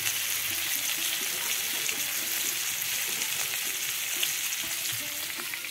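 Flour-coated Indian mackerel (bangda) pieces sizzling steadily in shallow oil on a flat tawa griddle, easing off a little near the end.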